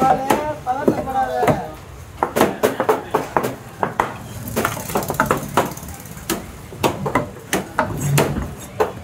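Heavy fish-cutting knife chopping through trevally on a wooden block: quick, irregular sharp chops, several a second, with a voice talking over them at the start.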